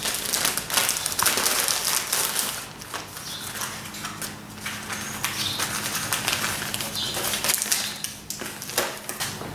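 Crinkling and rustling of the oil analysis kit's plastic and paper packaging as it is handled and opened, in irregular crackles, louder in the first couple of seconds and lighter after.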